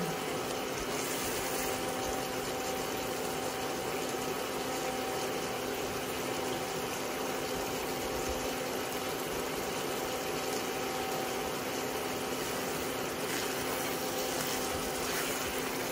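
Bitter melon, ground meat and egg sizzling and simmering steadily in a wok, with a constant hum underneath.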